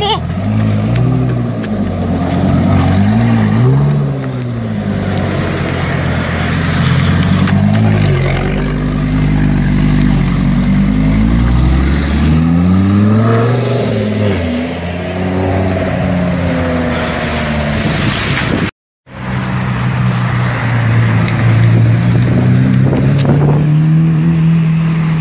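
Lamborghini engine revving and accelerating hard, its note rising and falling several times. After a sudden break about three-quarters of the way through, a Lamborghini Murciélago's V12 pulls away with a steadier, slowly rising note.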